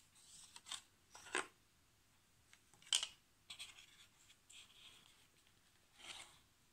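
Hands handling a Samsung Galaxy Note 10+ retail box and its accessory tray: a series of short scrapes, rubs and clicks, the sharpest about three seconds in.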